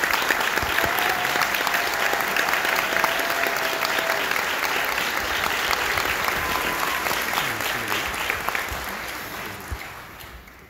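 Audience applauding, the clapping thinning out and dying away over the last couple of seconds.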